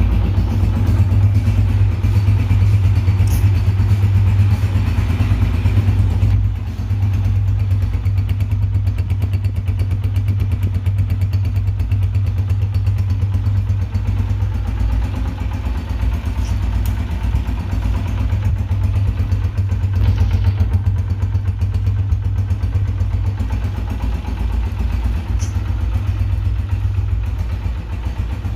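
Honda CG 125 (2019 model) single-cylinder four-stroke engine idling steadily with a low, even exhaust beat. It drops slightly in level about six seconds in.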